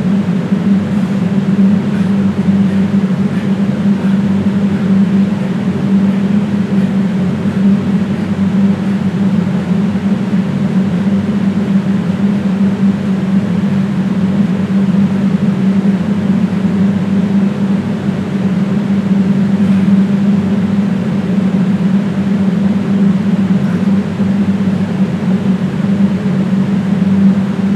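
A loud, steady, low-pitched mechanical hum that does not change.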